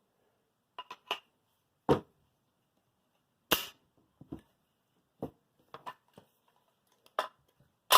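Irregular clicks and knocks of AR pistol parts being handled and fitted together, with the loudest knock about three and a half seconds in.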